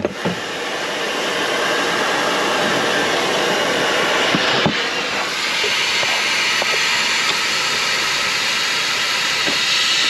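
Compressed air hissing steadily out of the 1998 International truck's air system as its leftover pressure bleeds off. There are a couple of knocks a little over four seconds in, after which the hiss turns sharper and louder.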